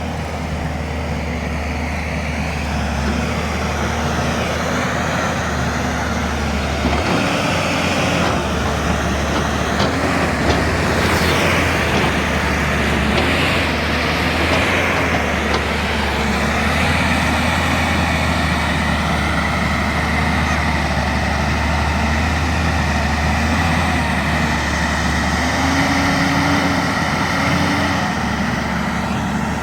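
JCB 205 excavator's diesel engine running as the machine works. Its low, steady hum shifts in pitch a few times as the load changes, and a louder hiss swells in the middle.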